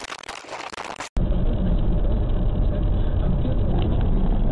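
About a second of hissy, crackling noise, then an abrupt cut to the steady low rumble of road and engine noise inside a moving car, picked up by a dashcam.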